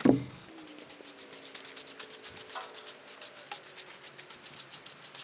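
A thump as a sawn slab is set aside, then a broom sweeps sawdust off a freshly sawn sweet gum cant in quick brushing strokes, several a second.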